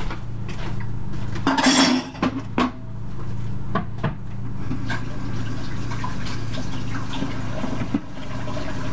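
Dishes and utensils clattering at a kitchen sink, then a tap running steadily from about three seconds in, over a low steady hum.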